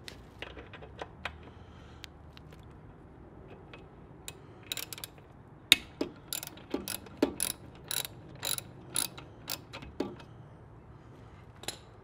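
Hand ratchet clicking in short runs while the rear brake caliper bolt is loosened. There are a few faint clicks at first, then a steady string of sharper clicks at about two a second through the middle, and a last click near the end.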